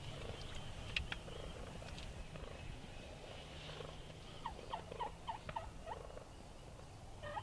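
Wild turkeys calling softly: low purrs and clucks, then a quick run of short, rising yelp-like notes about four to six seconds in.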